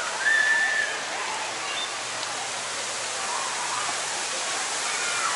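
Steady rush of water from the water slides, with distant voices and a brief high-pitched squeal about half a second in.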